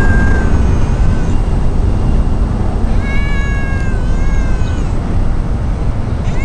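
Brown tabby-and-white cat meowing in a high, cute voice. There is the tail of one meow at the start, a short one about a second in, and two more in quick succession about three and four seconds in. A steady low rumble runs underneath.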